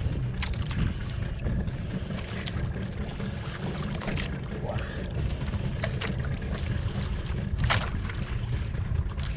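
Wind rumbling on the microphone and sea water around a small outrigger fishing boat, with a few short clicks and knocks scattered through.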